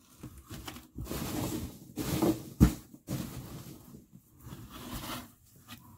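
Hands rummaging in a cardboard shipping box, rustling the packing as mini bath bombs are taken out, with one sharp knock about two and a half seconds in.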